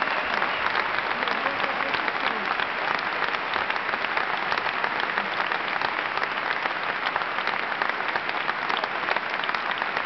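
Large audience applauding, a dense and steady sound of many hands clapping.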